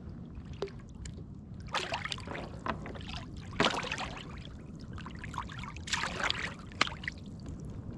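Water splashing and trickling beside a fishing kayak in three short bursts, over a steady low rumble of wind and sea.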